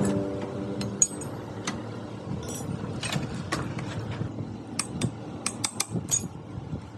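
Scattered sharp metallic clicks and clinks of tools and parts being handled during motorcycle repair, with a quick run of clicks about five to six seconds in. The engine tone dies away in the first second.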